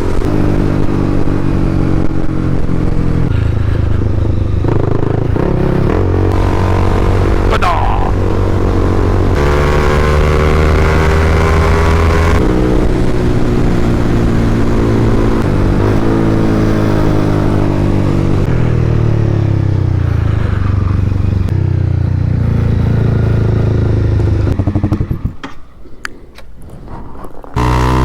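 Honda CBR300R's single-cylinder engine pulling under load, its pitch climbing and then dropping back several times as it shifts through the gears, with wind rush over it. Near the end the engine sound falls away sharply for a couple of seconds with a few clicks, then comes back.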